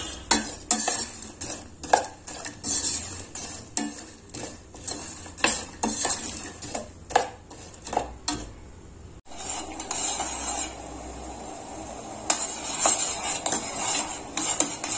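Metal spoon stirring and clinking against a stainless steel pot as jaggery pieces melt in a little water. About nine seconds in the sound changes to a steady bubbling of the melted jaggery syrup, with a few spoon clinks.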